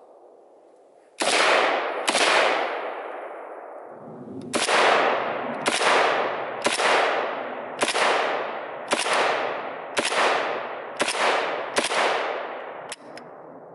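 AK-pattern rifle fired semi-automatically, ten shots in all. Two come about a second apart, then after a short pause eight more follow at roughly one a second. Each shot trails off in a long echo.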